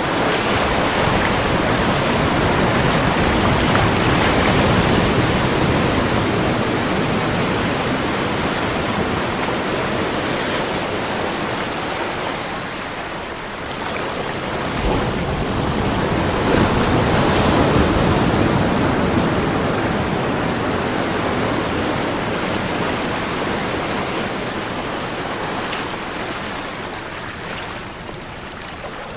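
Ocean waves breaking and washing on a shore, in two long swells that peak about five seconds in and again past the middle, each easing off afterwards.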